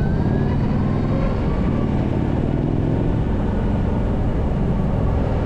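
Steady wind rush and road noise from riding a Zero SR/S electric motorcycle at speed, a dense low roar. A faint rising whine from the bike's electric motor can be heard during about the first second.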